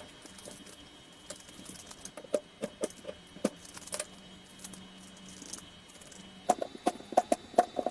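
Scattered light clicks and taps of metal parts as the open gearbox of a rotary hammer is greased and turned over by hand, its motor fan being rotated so that every gear picks up grease. A quick run of clicks comes near the end, over a faint steady hum.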